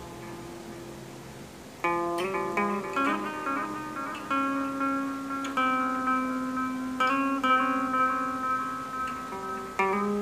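Guitar played through a Joyo digital delay pedal and amplifier: picked notes, each trailed by echo repeats, with the delay time set long. A held note dies away first, then new picking starts about two seconds in.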